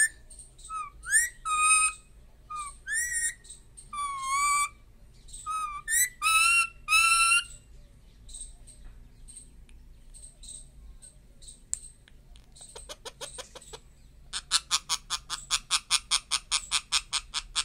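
Indian ringneck parakeet giving a run of short, loud whistled calls, many rising in pitch, over the first seven seconds or so, then a few soft clicks. Near the end it breaks into a fast, even rattling chatter of about seven pulses a second.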